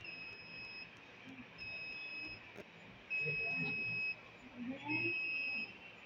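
An electronic alarm beeping: four long beeps on one high, steady tone, each about a second long and coming roughly every second and a half, the later ones louder.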